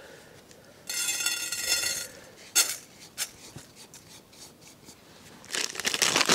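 Camp cooking gear being handled on a mat: a rasping scrape lasting about a second, a few sharp clicks, then a burst of clattering and rustling near the end.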